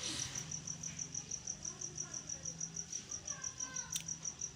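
A cricket chirping steadily, a high-pitched trill pulsing about five times a second. Near the end comes a single sharp click as the plastic spice box is handled.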